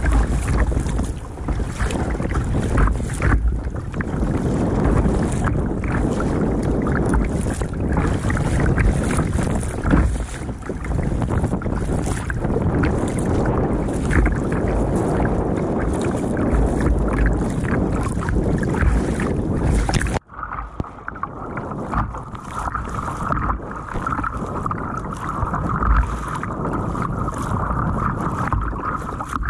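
Wind buffeting the microphone of a bow-mounted camera on a sit-on-top kayak, mixed with sea water splashing and slapping against the hull as it rides through waves. About two-thirds of the way through, the sound drops suddenly and turns duller.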